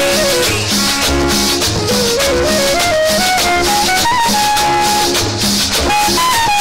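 Cumbia played loud over a sonido sound system: an instrumental melody climbing step by step, then holding a high note, over a steady repeating bass.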